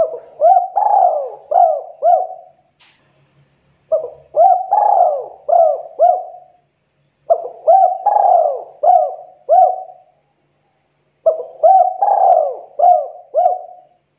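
Spotted dove cooing: four phrases of about five coos each, one every three to four seconds, with short pauses between.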